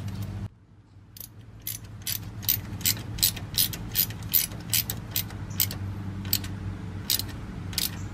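Small hand ratchet clicking, about two clicks a second, as it turns the T15 Torx screw holding the ABS wheel speed sensor on the front steering knuckle.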